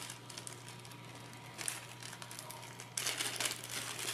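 Small clear plastic bag of spacers being handled, crinkling, with a short crackle partway through and louder crinkling from about three seconds in.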